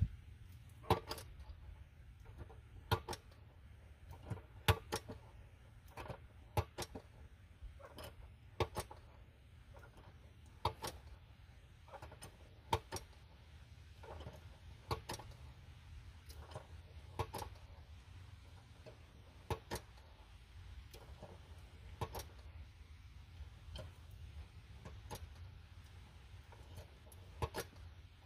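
Hand pump on a pail of 75W-90 gear oil being worked stroke after stroke, giving short sharp clicks about every one to two seconds, as the oil is pumped through a hose into a semi truck differential.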